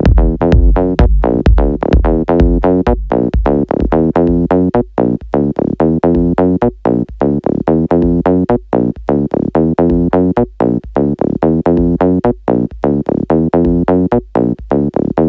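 Electronic dance music at 128 BPM, a house remix: short synthesizer chords chopped into a quick, even pulse in time with the beat.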